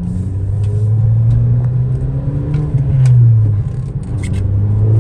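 Volkswagen MK5 wagon's engine pulling while the car is driven, its drone climbing in pitch about three seconds in and then dropping back. It is running on a freshly replaced PCV valve and sounds smooth.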